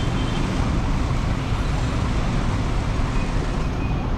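Steady road traffic noise: a continuous low rumble of vehicles with no single event standing out.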